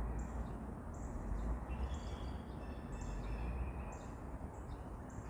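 Small birds chirping in repeated short high notes over a steady outdoor background with a low rumble.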